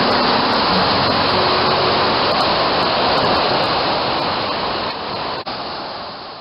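Steady rush of a waterfall, white water pouring in a loud, even hiss. It drops in level about five seconds in and fades away at the end.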